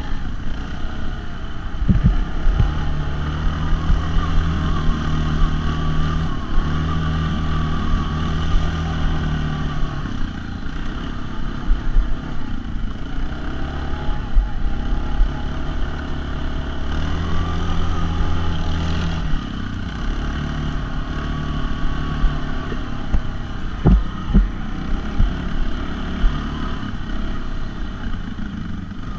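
ATV (quad bike) engine running while riding a rough dirt trail, holding steady revs for several seconds at a time, then easing off and picking up again. A couple of sharp knocks come through, one near the start and one near the end.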